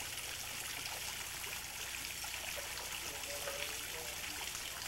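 Steady rush of running water with a faint crackle.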